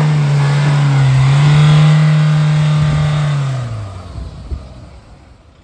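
Mahindra Thar's engine revving hard and held high under heavy throttle as the SUV struggles up a muddy off-road obstacle, then dropping away after about four seconds. A thump comes shortly after.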